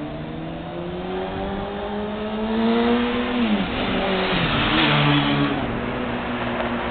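A road vehicle's engine accelerating, its pitch climbing steadily and then dropping sharply at a gear change about three and a half seconds in, before picking up again and settling.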